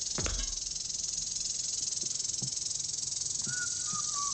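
Steady high-pitched hiss of an old analogue TV recording. A dull thump comes about a quarter second in, with a few faint knocks after it. Near the end a faint whistling tone sets in and drops slightly in pitch.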